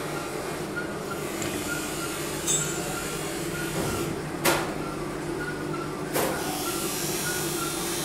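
Steady hum of workshop machinery with a faint regular ticking about twice a second, broken by three sharp knocks, the loudest about four and a half seconds in.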